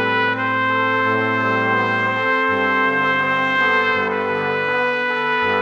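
Background music of held brass-like chords that change every second or so.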